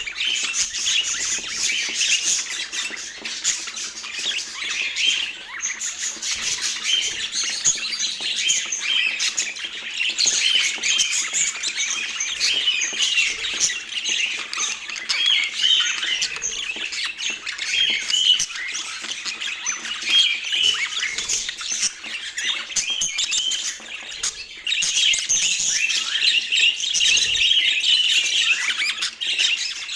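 A flock of budgerigars chattering continuously, many short calls and warbles overlapping.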